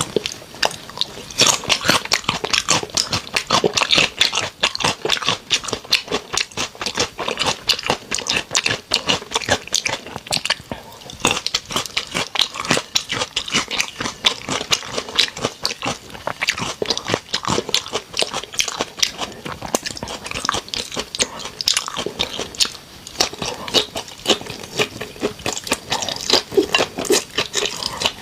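Close-miked ASMR eating of raw shrimp: wet biting, crunching and chewing, with a rapid, irregular run of sharp clicks throughout.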